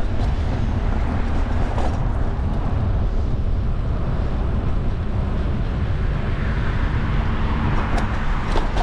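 Steady wind rushing over the microphone of a camera riding on a moving bicycle, mixed with car traffic on the road beside the path.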